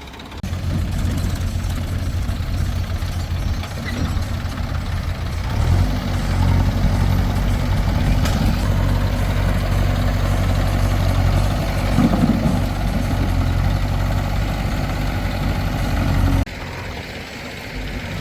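Heavy diesel engine of a backhoe or tractor running steadily. It grows louder and fuller about six seconds in, then drops off suddenly near the end.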